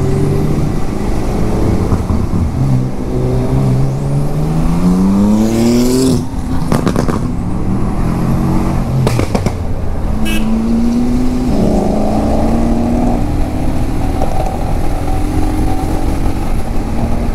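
Sports car engines accelerating on the road ahead of a moving motorcycle, mixed with the motorcycle's own engine and wind rush. One engine note climbs in pitch from about three to six seconds in and breaks off, a few sharp cracks follow, and a note climbs again about twelve seconds in.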